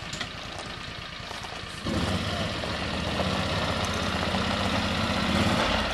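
John Deere Gator utility vehicle engines running on gravel; about two seconds in a nearer engine gets suddenly louder and keeps running steadily as it pulls away.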